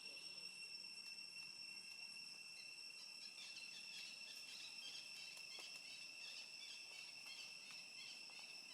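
Faint steady high-pitched drone of insects, with brief, faint chirps from about three seconds in.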